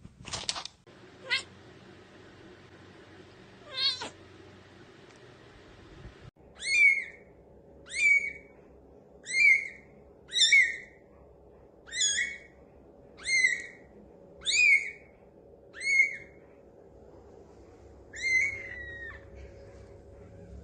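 Newborn kitten mewing: ten short, high, rising cries about one every second and a quarter, beginning some six seconds in, the last one longer and trailing down.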